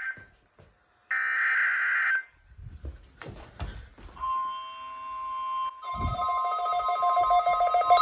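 NOAA Weather Radio warning alarm test: a raspy burst of digital alert-header data about a second in, then the steady 1050 Hz warning alarm tone from about four seconds. About two seconds later a louder, pulsing alert of several tones comes in over it.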